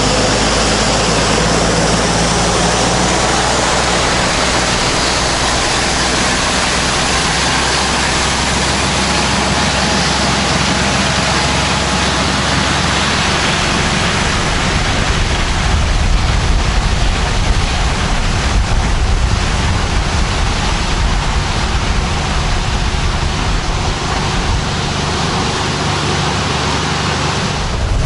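Compact diesel tractor engine running as the tractor drives along a gravel driveway, its engine note fading about halfway through under a steady rushing noise.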